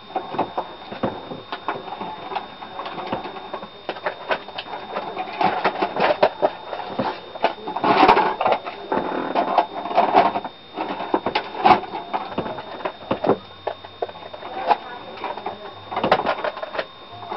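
Videocassette recorder mechanism clicking, clattering and whirring as it loads the tape and goes into play, with irregular sharp clicks that are busiest in the middle and again near the end.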